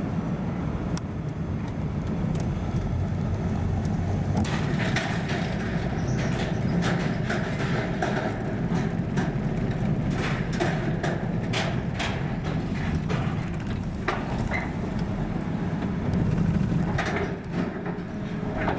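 A car moving slowly, heard from inside the cabin: a steady low engine and road hum. From about four seconds in comes a run of irregular clicks and clunks as it rolls up a ferry's ridged steel boarding ramp and onto the vehicle deck.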